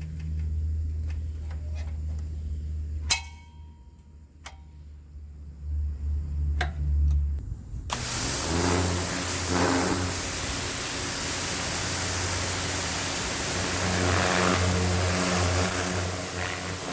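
Tractor engine running: a low steady hum with a few sharp clicks and knocks at first, then from about eight seconds in a much louder, fuller running noise that holds steady.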